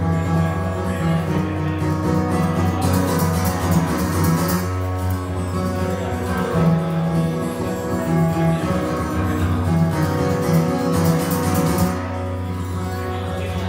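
Solo acoustic guitar playing an instrumental passage over a steady low ringing bass note, with two brighter, busier stretches of playing.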